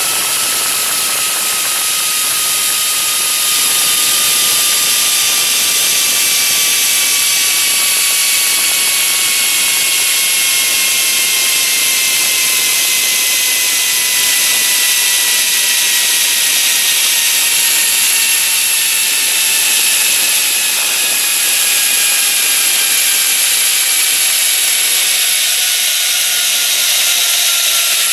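Zip line trolley pulleys running fast along the steel cable: a loud whirring whine over a rush of wind. The whine's pitch falls slowly and steadily as the trolley loses speed near the end of the line.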